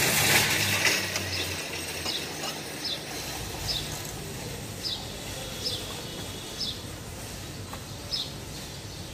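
Ratchet wrench clicking in short strokes, roughly once a second, as it works a rear shock absorber bolt. A low vehicle engine hum fades out in the first second or two.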